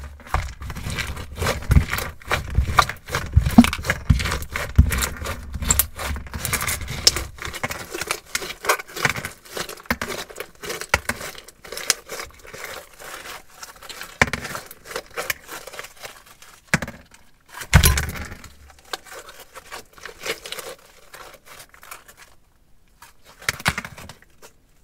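Crunchy slime squeezed and folded by hand, giving off a dense run of sharp crackles and pops that thins out in the second half and pauses briefly near the end.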